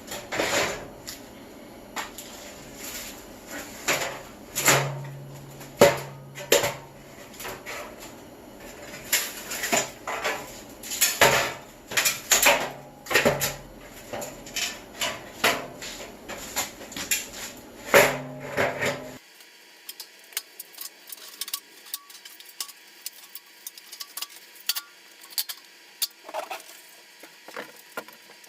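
Loose metal pieces clattering and clanking as they are handled, set down and dropped, with many sharp knocks and clinks. About two-thirds of the way through the sound changes abruptly to fainter light ticks and clicks.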